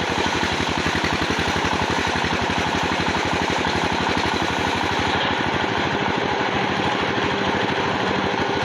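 An engine running at a steady speed with a rapid, even pulse. About five seconds in, the low pulsing weakens and the highest hiss drops away.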